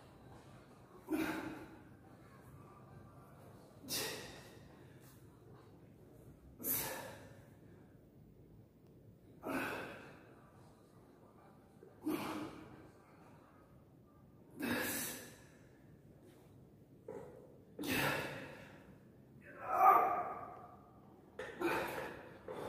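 A man breathing out hard with each dumbbell curl: a sharp exhale about every two and a half to three seconds, about nine in all. The last few near the end are strained and partly voiced.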